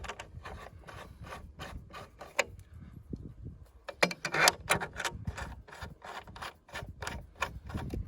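Irregular light clicks, taps and scraping of small hardware being handled: screws being started by hand through a clear Lexan plate into the pedalboard's power supply mounting posts. A longer rubbing scrape comes about four seconds in.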